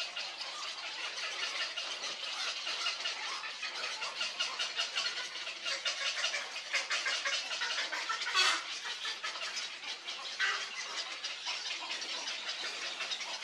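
Black-crowned night herons at the nest, the young giving a dense, rapid chattering begging call, with a louder squawk about eight seconds in and a shorter call a couple of seconds later.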